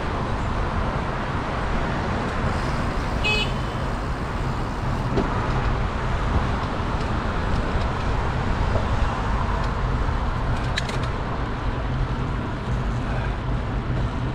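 Steady rush of wind and road noise while riding a bicycle along a road, with motor traffic around. A brief high chirp sounds a little over three seconds in.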